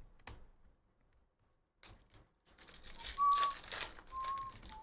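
Foil wrapper of a baseball card pack being torn open and crinkled by hand, starting about halfway in. Two brief high whistle-like notes sound over it.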